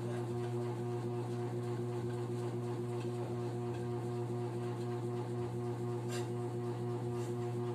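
A steady low electrical hum, with a faint click or two of a utensil against a bowl as a liquid egg-and-milk mixture is stirred.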